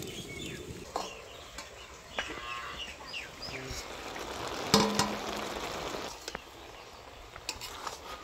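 A cow lowing once, briefly, about five seconds in. Birds chirp in the background, and a metal spatula gives a few knocks and scrapes against the wok as vegetables are stirred.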